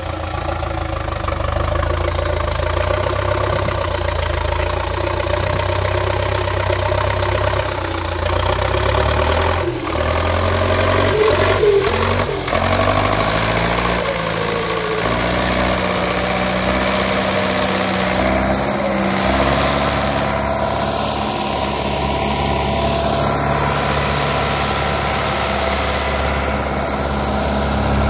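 Zetor 50 Super tractor's four-cylinder diesel engine running under load as it tows a trailer loaded with peat across a meadow. Its pitch shifts and glides about ten to thirteen seconds in, with a few knocks, then it settles back to a steady note.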